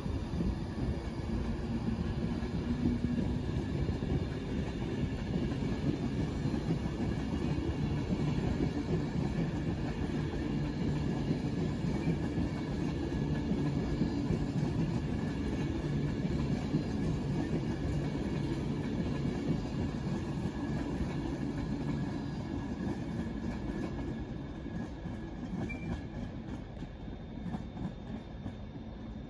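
Avanti West Coast passenger train passing through the station, a steady running sound of carriages on the rails that fades over the last few seconds as the train draws away.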